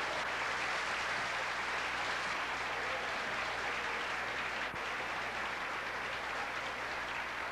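Studio audience applauding, a steady dense clapping throughout.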